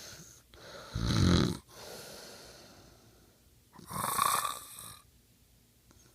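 A sleeping man snoring: two snoring breaths, one about a second in and a longer, hissier one around four seconds in.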